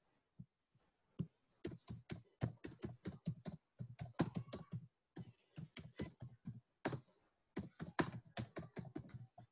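Computer keyboard being typed on, keys clicking quietly in quick runs with a couple of short pauses.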